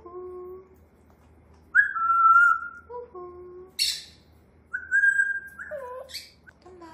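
African grey parrot whistling and calling: a few clear held whistles that fall slightly in pitch, with shorter lower-pitched calls between them and a brief harsh rasp about four seconds in.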